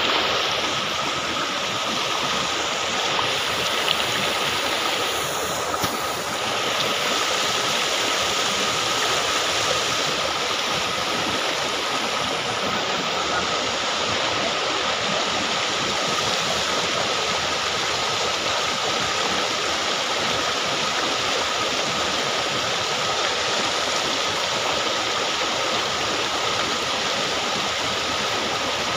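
Steady noise of a stream's running water, without a break.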